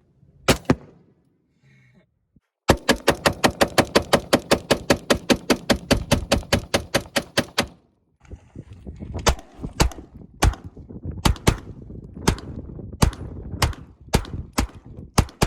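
Rifle gunfire. After a couple of sharp cracks comes a long, rapid, evenly spaced string of shots, about eight a second for some five seconds. Then slower, irregular single shots follow, roughly one or two a second.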